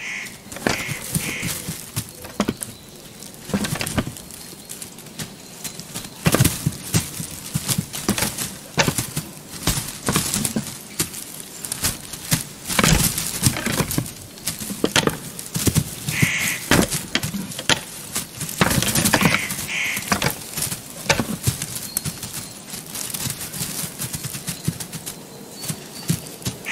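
Red deer stags fighting during the rut: irregular knocks and clatters of antlers clashing, with hooves trampling and twigs cracking on the forest floor.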